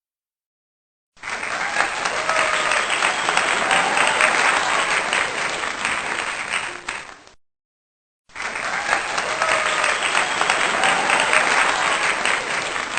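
Crowd applauding, with faint cheers, in two stretches of about six seconds each separated by a short silence.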